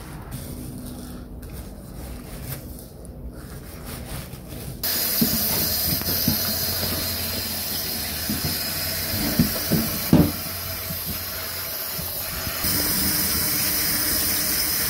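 Kitchen tap water running into a stainless steel sink while a whole raw beef leg is rinsed under it. The water comes on suddenly about five seconds in, with a few knocks from the meat and metal tray being handled.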